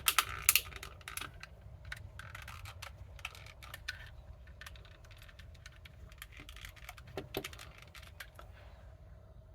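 Plastic housing of a BMW E92 master window switch being pressed together by hand: a few sharp clicks at the start, then scattered small plastic clicks and scrapes. The halves do not snap shut, because a part inside is in the way.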